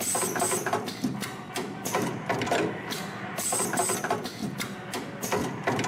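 CNC extension spring coiling machine running: a rapid clatter of mechanical clicks and knocks, with a high hiss at the start of each cycle, about every three and a half seconds, as it makes long extension springs.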